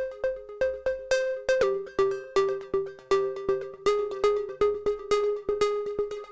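Background music: a light electronic tune of short, quickly fading notes at an even pace of about three a second.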